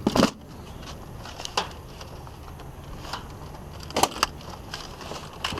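Discarded electronics and boxes being handled and knocked about in a dumpster: a loud knock at the start, scattered light clicks and clatter, then a couple of sharp knocks about four seconds in, over a steady low hum.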